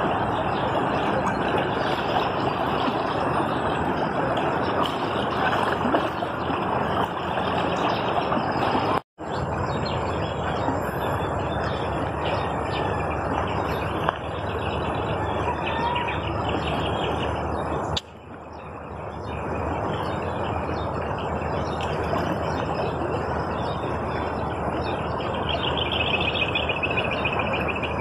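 Steady rushing of a swollen, fast-flowing river in flood, briefly cutting out about a third of the way in. Birds chirp near the end.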